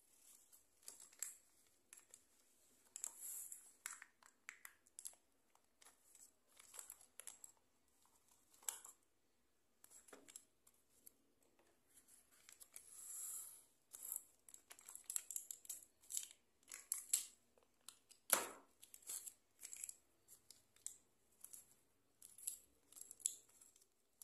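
Parchment paper rustling and crinkling in many short, irregular crackles as it is peeled away from a set block of curry roux, with a single sharper knock about three quarters of the way through.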